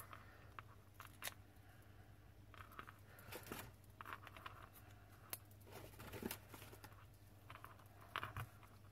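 Faint rustling and small clicks of a sheet of foam adhesive dimensionals and paper being handled, with dots peeled off their backing, over a steady low hum.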